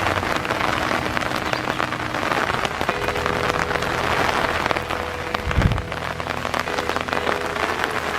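Light rain falling, with many small drop ticks through a steady hiss. A single low thump comes a little past halfway.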